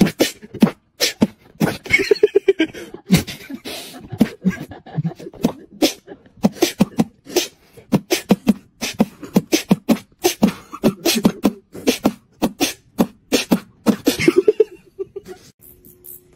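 Beatboxing-style track: a fast, rhythmic run of vocal clicks and percussive beats mixed with short low hums, stopping about a second before the end.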